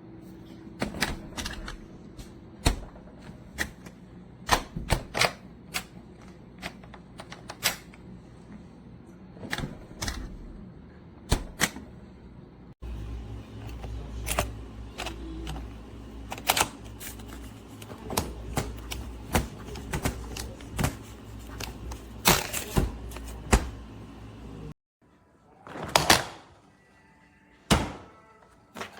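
Irregular plastic clicks and knocks from a French-door fridge lock being worked, with the fridge doors tugged and knocking against it.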